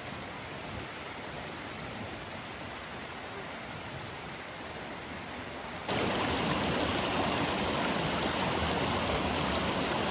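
Steady rush of flowing stream water. About six seconds in, it cuts abruptly to a louder, fuller rush.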